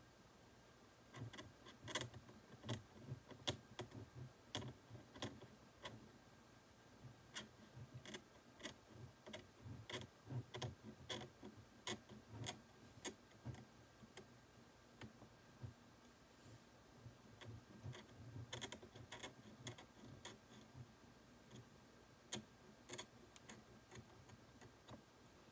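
Faint, irregular clicks and scrapes of a steel McCall 13/14 curette working against the teeth of a plastic dental typodont during scaling, with short pauses about six and fifteen seconds in.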